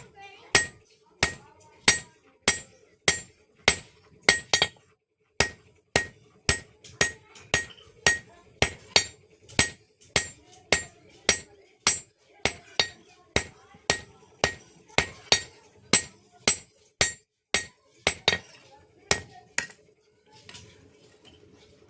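Hand hammer striking a metal spatula blank on an anvil in forging: a steady run of ringing blows, about one every half second or so, that stops for about two seconds near the end and then starts again.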